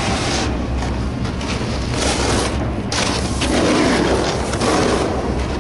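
Snowboard sliding and scraping over snow with a rush of wind buffeting the camera's microphone. The scrape swells about three and a half seconds in.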